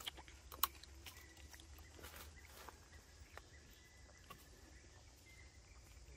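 Quiet outdoor background with a low steady rumble and a few sharp clicks, the loudest just over half a second in. A faint thin high tone is held through the middle.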